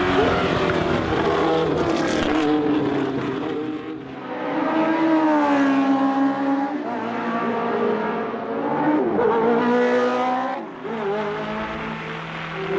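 Racing sports-car engines at high revs passing by one after another, the engine note falling as a car lifts off and rising again as it accelerates through the gears. The sound dips briefly about four seconds in and again near the end.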